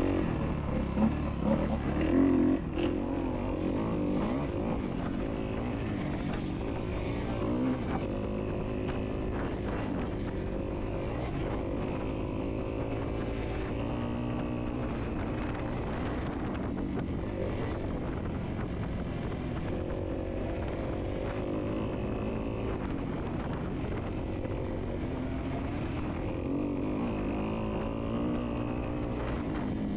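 Dirt bike engine running on a trail, its pitch rising and falling again and again with throttle and gear changes, over a steady low rumble.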